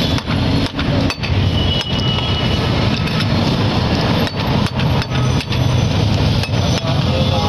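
A large carp's head and bones being cut on a boti, a curved blade fixed upright on a base: a dozen or so sharp knocks and cracks at irregular intervals. A steady hum of street traffic runs underneath.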